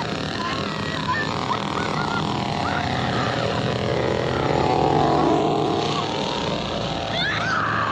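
Film soundtrack: a motor running steadily under shrill, wavering screams.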